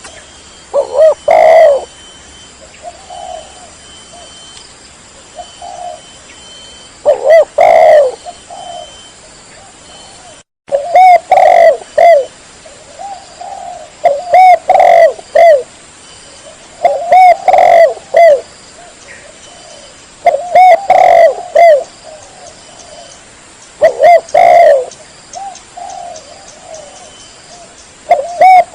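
Spotted dove (tekukur) cooing: loud phrases of several coos repeat about every three seconds, with softer coos between them. The sound cuts out briefly about ten seconds in.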